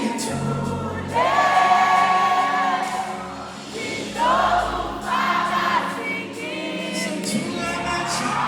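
Live gospel worship music: a choir singing long held notes that slide up into each phrase, over steady instrumental backing.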